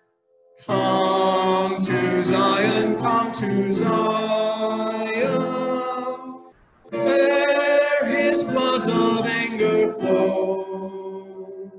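A hymn sung with a man's voice to the fore, in two long phrases with a short breath pause about halfway through.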